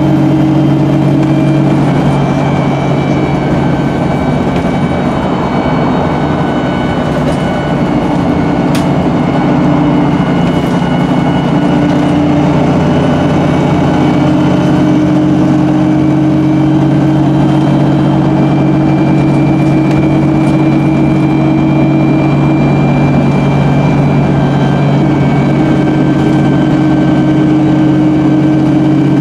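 Cummins diesel engine of a re-engined MAN 18.240 single-deck bus running steadily under way, heard inside the passenger saloon as a loud, even drone with fainter high-pitched whines above it.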